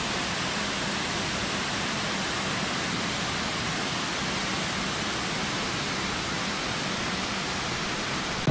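A waterfall rushing: the steady, even hiss of falling water, unchanging throughout.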